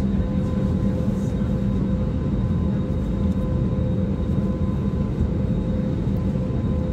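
Steady airliner cabin noise: a constant low rumble with a faint steady hum on top.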